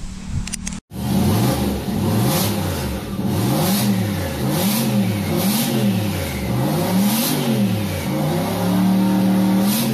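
An engine revving up and down over and over, then held at a steady higher speed near the end. It starts after a brief silent cut about a second in.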